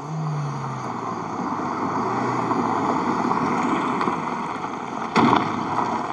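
Mercedes-Benz SLK roadster driving slowly over a gravel and dirt surface, its tyres crunching and its engine running low, with a brief louder crunch about five seconds in as it pulls up.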